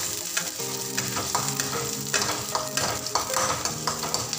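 Sliced onions sizzling in hot oil in an aluminium kadhai, stirred and scraped against the pan with a perforated metal slotted spoon, with irregular scraping strokes over the steady frying hiss.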